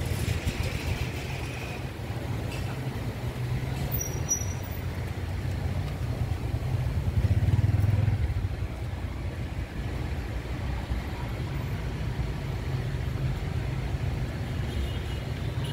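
Steady low rumble of outdoor urban background noise, swelling briefly about seven seconds in.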